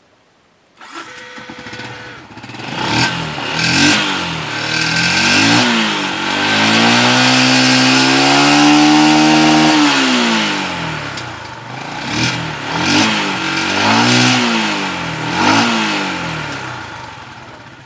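Yamaha Exciter 135's single-cylinder four-stroke engine starting about a second in and being revved in repeated throttle blips, with one long rev held for about three seconds, then settling back toward idle. Freshly oil-changed, it runs smooth, with no knocking.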